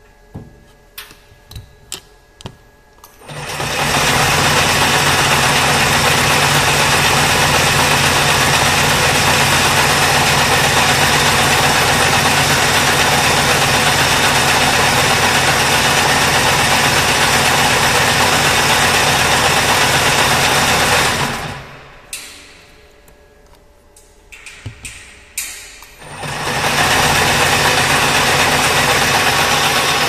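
High-speed wire harness braiding machine starting and running with a dense, steady mechanical clatter from its rotating carriers and drive motor. It stops about two-thirds of the way through and starts again near the end. A few sharp clicks come before the start and during the pause.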